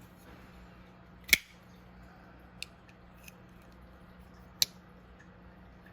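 Sharp metallic clicks from a Bestech Matsey folding knife's blade being opened and snapped shut to test its action after its pivot screw has been backed off slightly. The loudest click comes about a second in, a second strong one past four and a half seconds, with two fainter ticks between.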